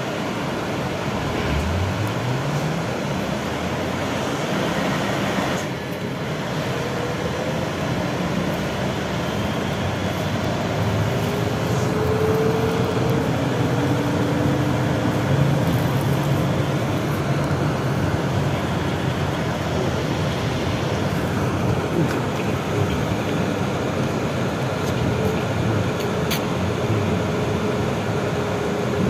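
Inside a BKM 32100D trolleybus under way: a steady rumble of tyres and road, with the electric traction drive whining. The whine rises in pitch about two seconds in as the trolleybus picks up speed, and fainter tones come and go later.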